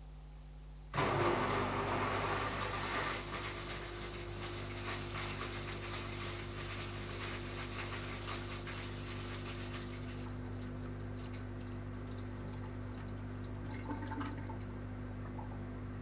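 Bush WMDF612W washing machine's drain pump starting about a second in: a steady pump hum with water rushing out, loudest for the first couple of seconds and then settling. The machine is draining its sudsy wash water before it re-attempts the spin.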